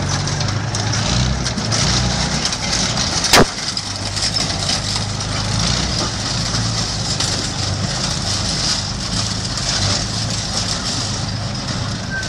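A vehicle engine running steadily, with a single sharp bang about three and a half seconds in.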